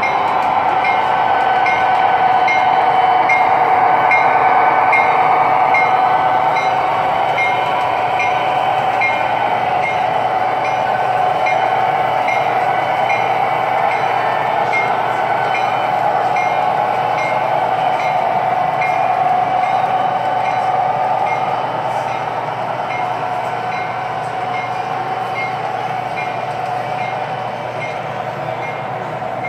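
O scale model train running on the layout: a steady mechanical hum with a regular light clicking over it. It grows louder over the first few seconds, then slowly fades.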